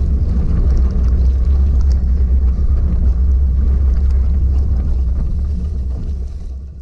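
Wind buffeting the microphone of a camera on a gravel bike ridden at about 18 mph, a heavy low rumble, with tyre noise through wet mud and gravel and a few small ticks. It fades out near the end.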